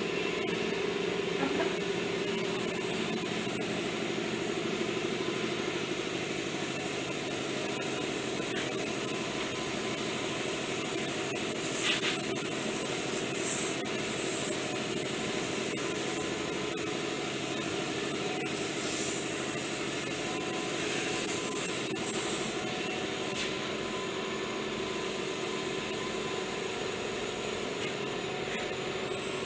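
Air compressor running with a steady hum. Airbrushes give short hisses of air now and then, about twelve seconds in and again around twenty seconds.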